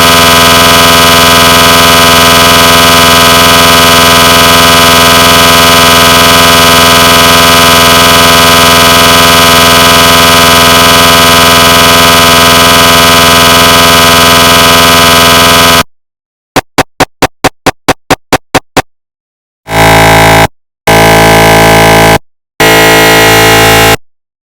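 Synthesized recreation of a GE 750w 3T MRI scanner's scanning sounds. A loud, steady buzzing tone with many overtones runs for about sixteen seconds and cuts off suddenly. It is followed by a quick train of about a dozen short pulses, about five a second, then three longer buzzing tones with brief gaps between them.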